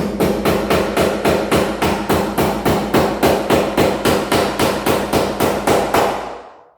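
Hammer rapidly tapping a cable staple into a wooden beam to fasten electrical cable, an even run of about four strikes a second that stops near the end.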